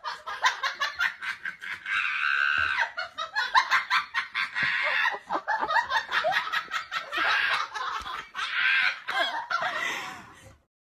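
A person laughing hard in repeated bursts of laughter, which stop shortly before the end.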